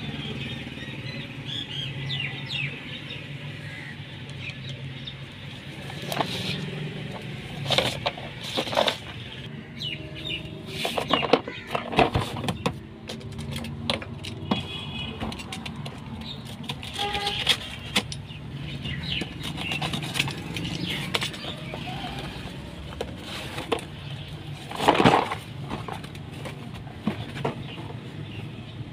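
Plastic wrapping being cut with a utility knife and peeled off a hard plastic tool case: crackling and crinkling with sharp clicks and knocks of the case being handled, loudest about 25 seconds in. A steady low hum of traffic and some bird chirps sit underneath.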